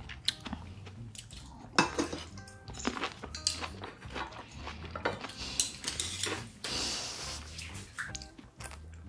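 Scattered clinks and knocks of dishes and utensils on a metal tray, over faint background music.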